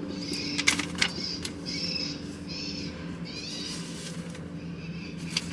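Mercedes-Benz Actros truck's diesel engine idling, heard from inside the cab, with a run of short high chirping calls about every half second over the first four seconds and a few light clicks.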